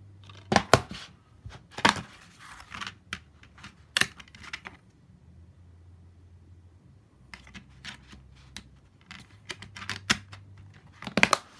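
A plastic DVD case being handled and opened, with the disc pressed on its centre hub: a series of sharp plastic clicks and snaps, loudest about half a second in and again in a cluster near the end.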